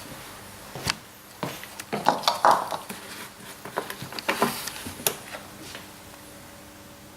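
Clicks and knocks of the oil bottle, funnel and filler cap being handled while a little more engine oil is topped up, with a louder rustling stretch about two seconds in. Near the end it goes quiet apart from a faint steady hum.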